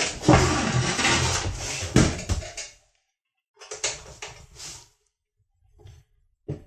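A PC tower case being handled and tipped onto its side, with a knock about two seconds in. Then a screwdriver prying at the push-fit plastic front panel, its clips scraping and giving small clicks as they work loose.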